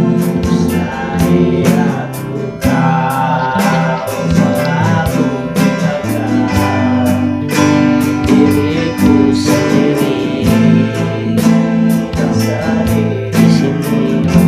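Acoustic guitar strummed in a steady rhythm while a man sings the melody along with it.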